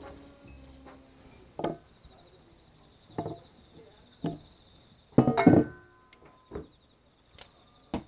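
Knife cutting apples on a wooden cutting board: separate knocks every second or so, with a louder burst of several knocks about five seconds in.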